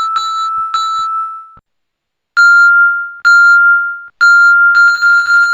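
A bell-like ding sound effect, one clear tone with high overtones, played each time the 3D objects collide in a Java 3D program. Two dings come, then a short gap, then three dings about a second apart, then rapid retriggered dings that run together near the end.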